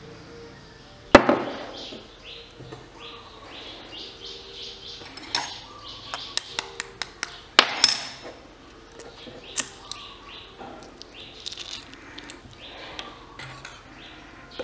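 Light taps and clinks against a small ceramic bowl as a quail egg is cracked and emptied into it. Two sharp knocks stand out, one about a second in and one about halfway.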